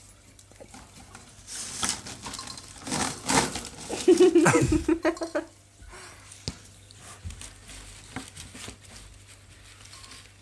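Rustling and scraping of a hand and a small animal against a ribbed plastic pet tunnel and loose wood-shaving bedding, with a run of louder scrapes and a brief low hum near the middle, then quieter scattered ticks.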